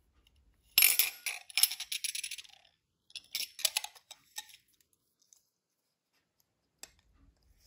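Small metal pieces clinking and rattling as a silver charm is threaded onto wire against a thin scalloped metal disc: a rattling run about a second in, a shorter one about three seconds in, then a single faint tick.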